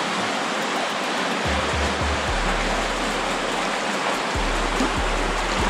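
Creek water rushing steadily over a riffle, with instrumental background music whose low bass notes come in about a second and a half in.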